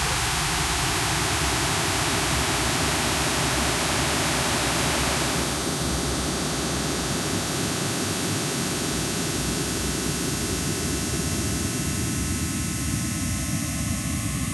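Industrial noise music: a dense, steady wall of hiss and static. About five seconds in, the texture shifts and drops a little, with thin steady tones showing through the hiss.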